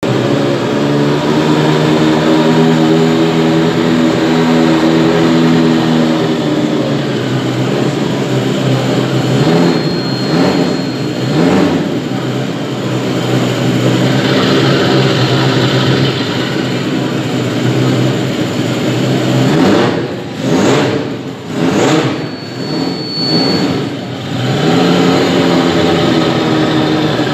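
Motorcycle engine running at a steady idle, then revved up and down with repeated throttle blips, twice: once around the middle and in a quick series a few seconds later. It then settles back to idle near the end.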